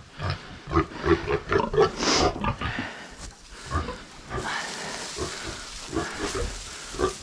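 Pigs grunting, a quick run of short grunts in the first couple of seconds and a few more later, with dry straw rustling as a bale is pulled apart and spread, loudest past the middle.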